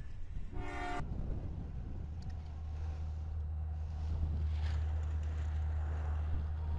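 A brief blast of a diesel locomotive's multi-chime air horn, cut off after under half a second, then the deep, steady rumble of a consist of diesel locomotives, growing slowly louder.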